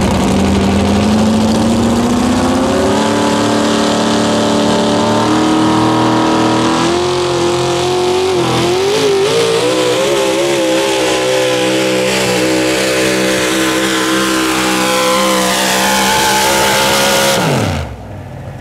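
Modified 4WD pulling truck's engine at full power under sled load. Its pitch climbs over the first few seconds, wavers up and down in the middle, holds high, then falls away sharply near the end as the throttle is let off.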